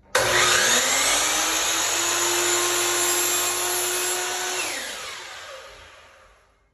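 DeWalt sliding compound miter saw starting suddenly and spinning up with a rising whine, then running loud and steady as its blade cuts through a NuCORE vinyl floor plank. About four and a half seconds in the trigger is released and the blade winds down with a falling whine.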